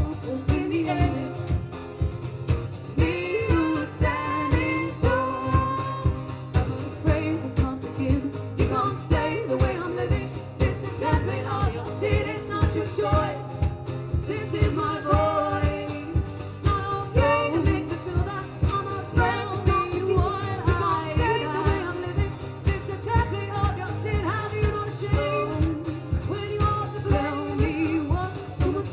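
Live band music: a song played over a steady beat of about two strokes a second, with a melodic line, possibly sung, moving above it.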